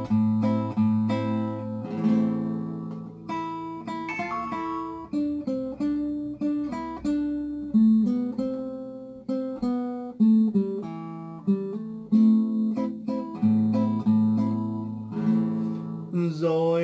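Wayne W-20 nylon-string classical guitar played fingerstyle and unamplified: a melody of plucked notes over held bass notes.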